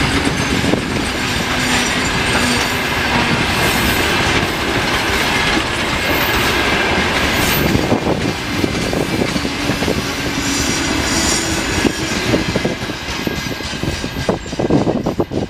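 Freight train of open gondola wagons passing close by: steady loud rumble and clatter of steel wheels on the rails, with a faint wheel squeal. Near the end the din thins into separate clacks over the rail joints as the tail of the train draws away.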